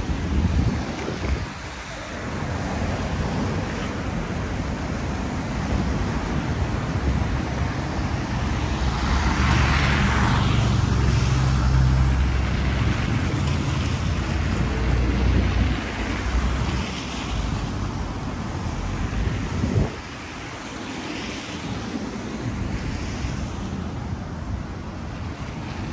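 A heavy vehicle passing close by: a low rumble swells about eight seconds in, with a rushing hiss at its peak, and fades by about sixteen seconds, over a steady background of street noise. The noise drops off suddenly near the end.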